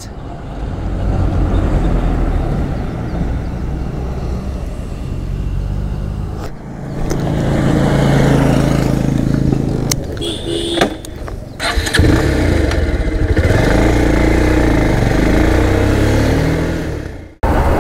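Motorcycle engine running, with the pitch rising and falling as the bike moves off and rides on. The sound breaks off abruptly a few times.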